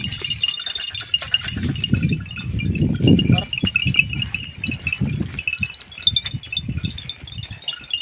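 Wind buffeting the microphone in irregular low gusts, loudest in the middle, over a steady, rapidly repeating high tinkling chirp.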